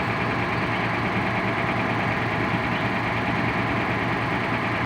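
Vehicle engine idling steadily, an even low hum with no changes in speed.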